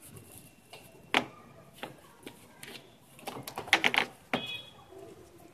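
Plastic clicks and knocks from a Symphony air cooler's cooling-pad side panel as it is pushed and fitted back into the cooler body. There are scattered single clicks, then a quick rattling cluster about three and a half to four seconds in.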